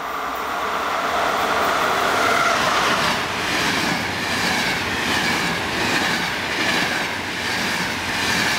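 Intercity train hauled by an FS E444 electric locomotive passing close by at speed. The rush of wheel and rail noise rises to its loudest about two seconds in as the locomotive goes by, then the coaches' wheels clatter over the rails in a beat about once a second.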